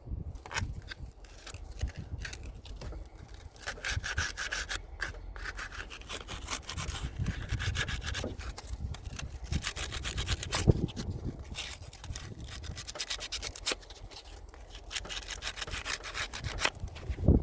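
Hand-sanding an AC hose fitting clean: quick back-and-forth rubbing strokes in long runs, easing off briefly past the middle before picking up again.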